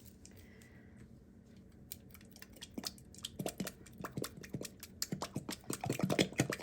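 Soup can being opened with a hand can opener: a run of small sharp metal clicks and ticks that starts about two seconds in and comes faster and louder toward the end.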